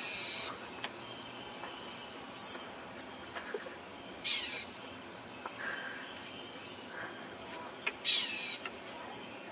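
Bird calling: three harsh squawks, each sliding down in pitch and lasting about half a second, spaced about four seconds apart, with a short high chirp between each pair.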